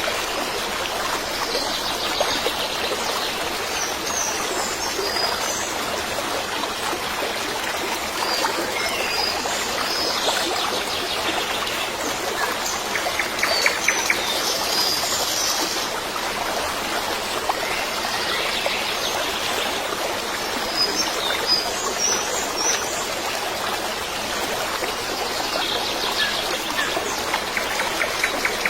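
Running water like a flowing stream, with birds chirping now and then.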